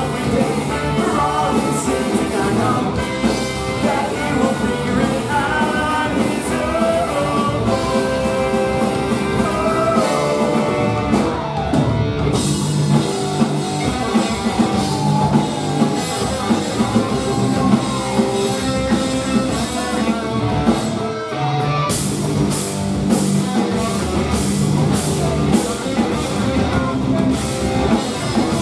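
Live ska-punk band playing loudly: distorted electric guitar, bass, drum kit and a horn section of saxophones and trombone, with singing. In the last several seconds the cymbals crash on a steady beat.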